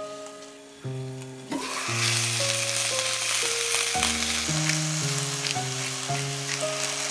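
Pak choi sizzling in a stainless steel pot, the hiss starting suddenly about a second and a half in, under background music.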